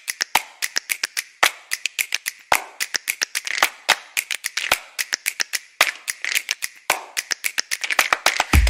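Background music: a percussive intro of crisp clicks and snaps in a steady rhythm, with a heavier accent about once a second and a low bass coming in near the end.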